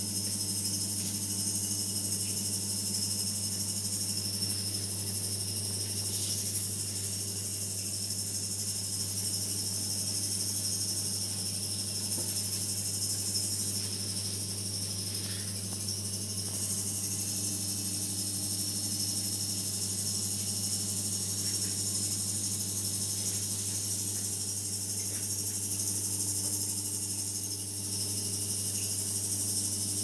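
Steady electrical hum from running laboratory heating and distillation equipment, under a continuous high, shimmering hiss.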